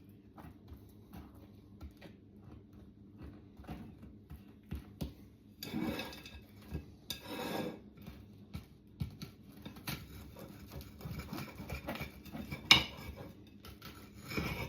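A table knife scraping spread across slices of toast, with small clinks of the knife against a plate; two longer scrapes come about halfway through, and one sharp clink shortly before the end is the loudest sound.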